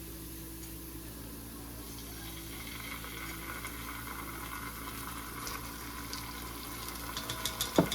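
Curry paste and oil starting to sizzle in a heating pan, the crackle building from about two seconds in. Near the end a utensil starts clicking against the pan as it is stirred.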